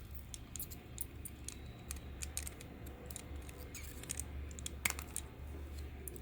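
Irregular light clicks and taps of small hard parts being handled, with a sharper click about five seconds in, over a steady low hum.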